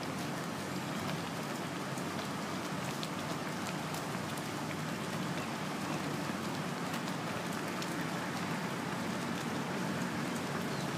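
A pot of budae jjigae (Korean army stew) simmering on a portable gas burner: a steady bubbling with scattered small pops.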